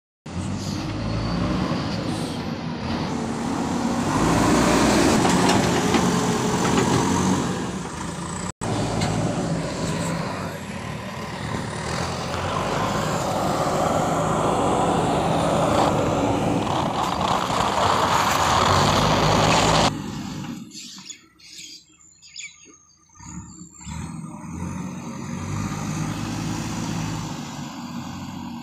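JCB backhoe loader's diesel engine running loud and steady. About twenty seconds in, the sound drops abruptly and the engine is heard only faintly.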